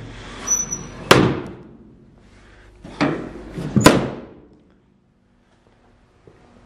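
The steel rear cargo doors of a 1951 GMC panel truck being swung shut: a slam about a second in, then two more slams around three and four seconds in, the last the loudest.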